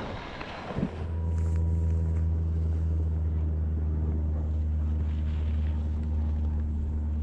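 Rushing wind noise fades out, and from about a second in a steady low hum with several overtones holds on unchanged.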